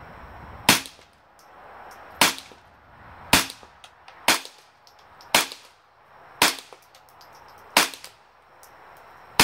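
A GSG AK-47 .22 LR rifle firing low-velocity CCI Quiet segmented hollow-point rounds (about 710 fps) in semi-auto. It fires about eight sharp shots at an uneven pace of roughly one every second or so, each followed closely by a smaller click.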